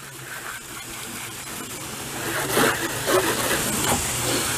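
Water spraying from a hose onto a car's freshly coated paint and glass, a hiss that grows louder about two seconds in, over a low steady hum.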